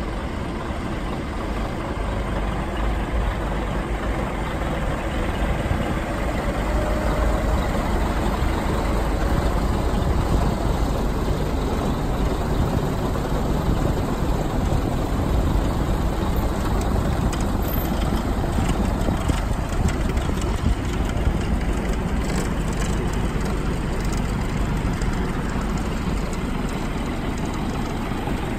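Scania R420 truck's 12-litre inline-six diesel engine idling steadily.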